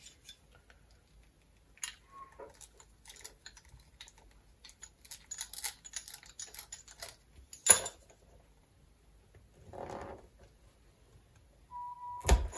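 Cutters and a utility knife working the outer jacket of RG-213 coax to strip it: scattered small clicks and scrapes of the tools on the cable, with one sharper click about three-quarters of the way through and a short scrape soon after.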